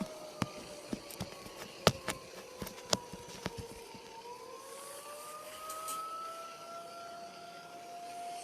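Tornado warning siren sounding a steady wail whose pitch sags lower over the first few seconds and then rises back up. Several sharp clicks or knocks come in the first few seconds.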